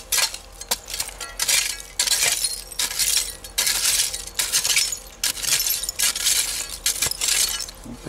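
A short-handled pick striking and scraping through a dump layer of dirt, broken glass and old bottles, giving irregular glassy clinks and crunches every half second or so.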